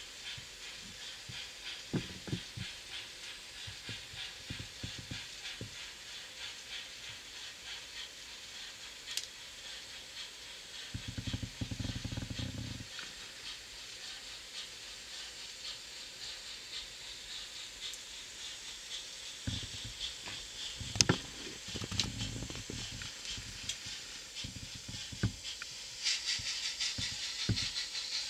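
Digital sound decoder of an N-scale 2-6-0 Mogul steam locomotive model playing a steady rhythmic steam chuff, growing louder near the end as the engine comes into view. Scattered low knocks and rumbles, and one sharp click about two-thirds in, sound over it.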